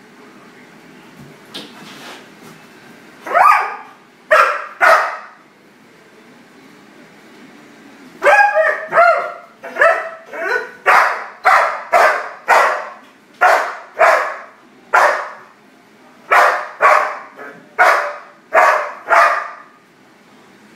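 German shepherd barking at a spot of light on the wall: three barks, a pause of a few seconds, then a long run of steady, evenly spaced barks, about two a second.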